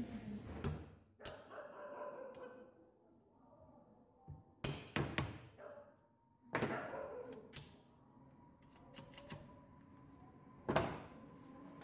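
Steel gearshift and gearbox parts knocking and clinking against the open crankcase of a Hero Splendor Plus engine as they are handled and fitted: a handful of separate sharp knocks, some with a brief metallic ring.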